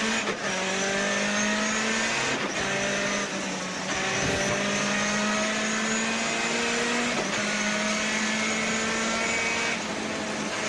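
Rally-prepared Ford Escort Mk II engine under hard acceleration, heard from inside the car. It revs up through the gears, the pitch dropping at each of about five quick gear changes.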